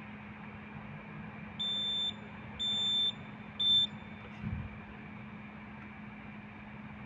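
Conventional fire alarm control panel's buzzer sounding three high-pitched beeps about a second apart, the last one shorter, over a steady hum. A low thump follows about a second after the beeps.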